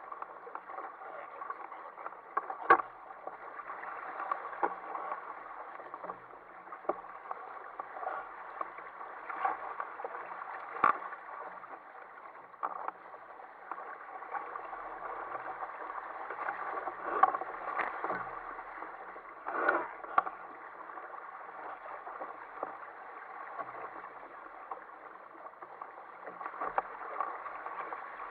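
Sea water rushing and splashing along the hull and outriggers of an Ocean Kayak Prowler 13 sailing through choppy water. Several sharp slaps of waves against the hull stand out, the loudest about three and eleven seconds in, and a few more around seventeen to twenty seconds in.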